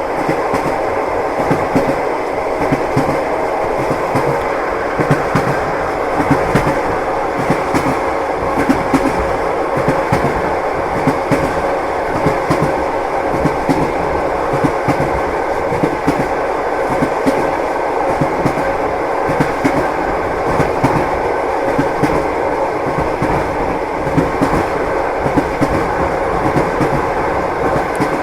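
Passenger train wheels clattering over the rails, heard from inside a sleeping-car compartment: a steady running rumble broken by frequent knocks.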